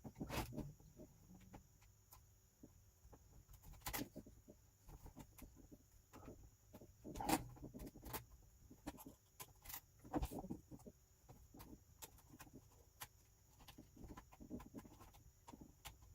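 Faint, irregular clicks, taps and small knocks of a mini screwdriver turning tiny screws back into a laptop's display assembly, with a few louder handling knocks.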